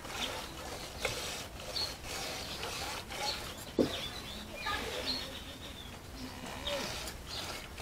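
Hand milking a cow: milk squirting from the teats into a pail in short, rough hissing squirts, repeated irregularly about once a second.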